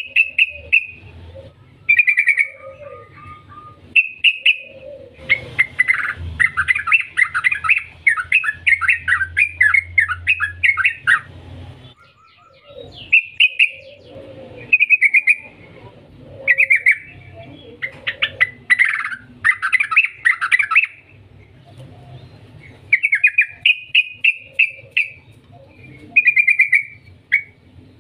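Yellow-vented bulbul in full song: short bubbling phrases every second or two, with a longer run of rapid notes from about five to eleven seconds in.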